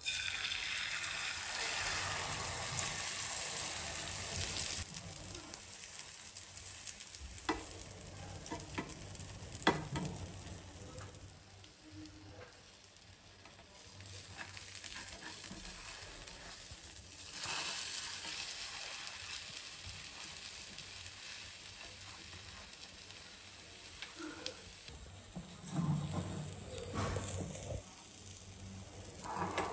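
Brinjal omelette batter sizzling loudly as it is poured into hot oil in a frying pan, settling into a quieter, steady frying hiss. A few sharp knocks of a spatula against the pan come through, and the sizzling rises again about halfway through.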